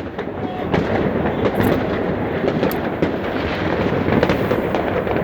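Many fireworks and firecrackers going off at once across a city, a dense continuous crackling of bangs layered over a low rumble of distant explosions.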